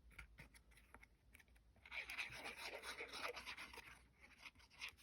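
Faint scratchy rubbing on card as glue is applied to a paper die-cut, with a few light clicks of paper being handled before it.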